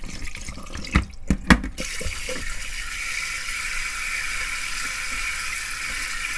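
Kitchen tap running into a pot of whole fish in a stainless-steel sink while a hand swishes the fish about to rinse them. About a second in, three or four dull knocks stand out above the water.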